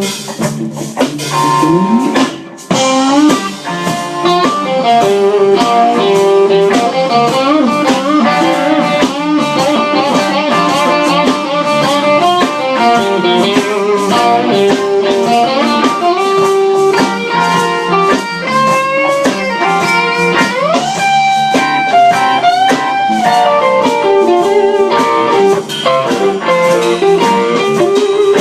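Live blues band playing an instrumental break: an electric guitar lead with bent notes over a drum kit.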